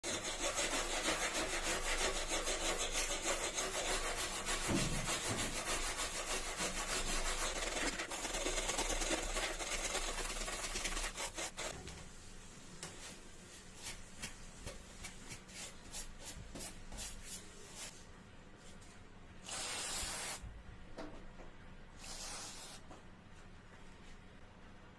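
Hand sanding of rust off a washing machine's metal: fast continuous back-and-forth scrubbing that slows about halfway into separate strokes, then two short hissing bursts near the end.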